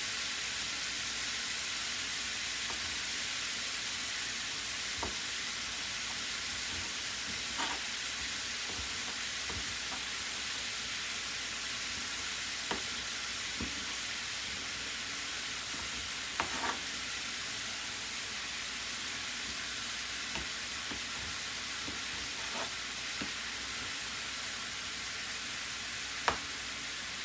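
Chicken pieces frying in a pan with a steady sizzle, broken now and then by light clicks of a utensil stirring against the pan.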